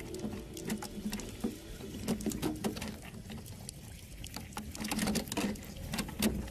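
A dense, irregular patter of sharp clicks and crackles.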